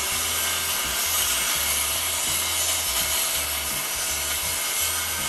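Corded circular saw cutting through a plywood panel, the blade running steadily under load in the wood.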